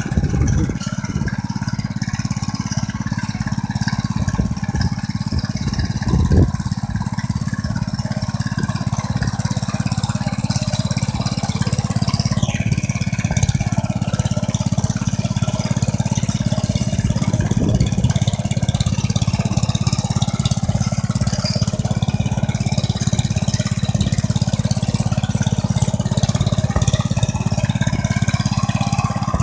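1963 Gravely Model L walk-behind tractor's single-cylinder engine running steadily as the tractor drives across the lawn pulling a riding sulky.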